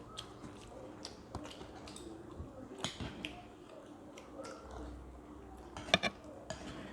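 Chewing and other mouth sounds of people eating luchi with ghugni and payesh, with scattered small clicks. A sharper click comes about six seconds in.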